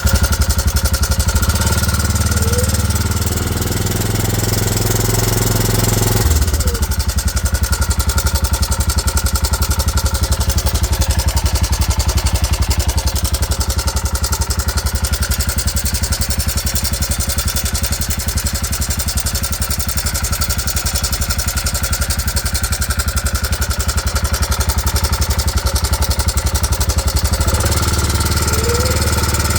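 2009 Arctic Cat 400 ATV's single-cylinder engine running at a steady idle with a fast, even beat. The owner presents it as a strange noise whose cause he doesn't know. Its tone shifts about six seconds in and again near the end.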